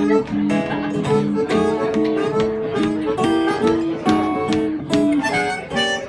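Live acoustic blues played on harmonica and acoustic guitars. The harmonica holds long notes over a repeating plucked guitar rhythm in an instrumental passage.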